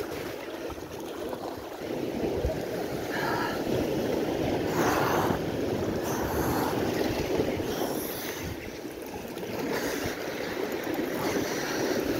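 Ocean surf washing and breaking against rocks, a steady rushing hiss that swells and eases with the waves.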